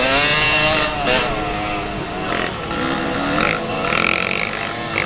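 Yamaha YZ250 two-stroke dirt bike engine being ridden hard, heard close up from the bike itself. The revs rise and fall in the first second or so, then run more steadily with small changes in pitch.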